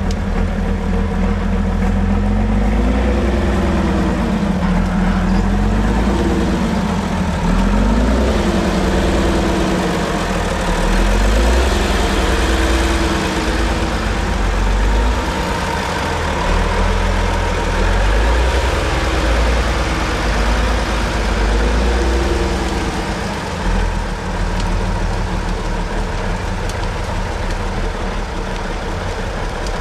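Praga V3S trial truck's engine running hard, revving up and falling back again and again as the truck crawls and climbs through rough terrain, then running steadier near the end.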